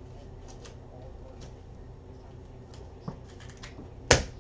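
Faint scattered clicks and light handling noise from trading cards being sorted on a table, with one sharp knock a little after four seconds in.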